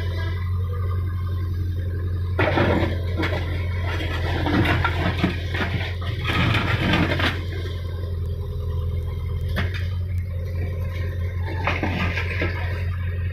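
Backhoe loader's diesel engine running with a steady low hum. From about two and a half to seven and a half seconds in, and briefly twice later, an irregular rushing, clattering noise rises over it.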